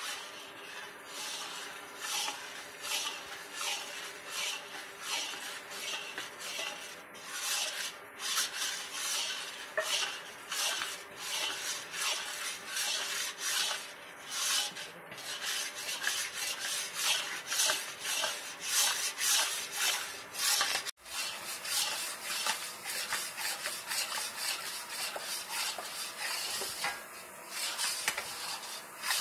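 Long metal spatula scraping and stirring gram flour (besan) around a metal wok, a repeated rasping stroke roughly once or twice a second. The flour is dry at first and becomes a wet paste, with a brief break about two-thirds of the way through.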